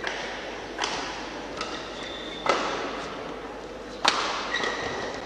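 Badminton rally: a racket strikes the shuttlecock three times, sharp hits about a second and a half apart, the last two the loudest. Short squeaks of shoes on the court floor come between the hits.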